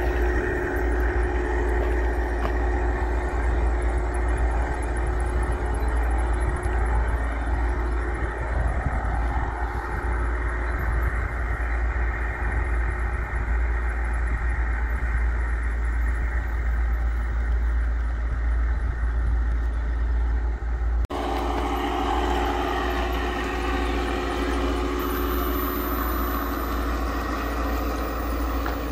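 A vehicle running: a steady low rumble with a few steady tones above it. It breaks off abruptly for a moment about two-thirds of the way through, then resumes.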